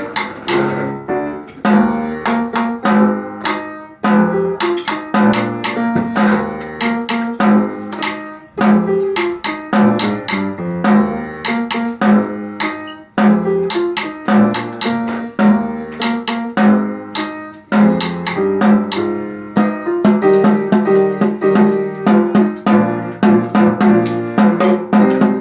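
Snare drum played in a steady rhythm along with pitched instrumental accompaniment.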